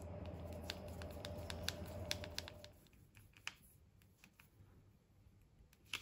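Faint scattered clicks and ticks of a screwdriver and the plastic starter switch housing being fitted back onto a motorcycle handlebar. A low steady hum lies under the clicks and stops about two and a half seconds in.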